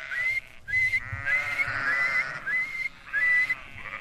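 A shepherd whistling for his flock with a series of short, slightly rising whistles, while sheep (ewes and lambs) bleat in answer.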